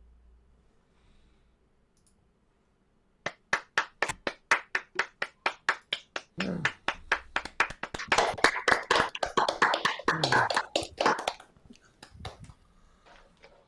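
Applause from a small group of people heard over a video call: one person starts clapping steadily at about three claps a second some three seconds in, others join a few seconds later in a denser patter, and it thins out to a few last claps near the end.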